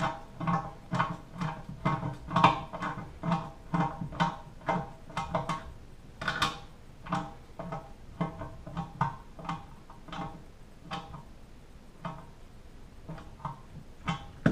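Metal wrench tightening the nut on a toilet's floor bolt. It makes a steady run of sharp metallic clicks, about two or three a second, each with a short ring, and they thin out over the last few seconds.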